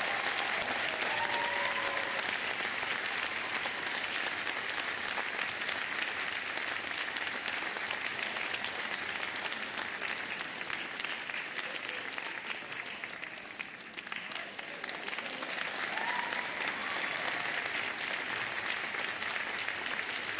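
Audience applauding steadily in a concert hall, thinning briefly about two-thirds of the way through before picking up again.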